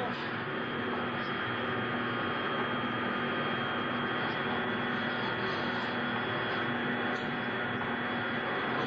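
Electronic travel sound effect: a steady hum with a high held whine over an even hiss, marking the characters setting off on a magical journey.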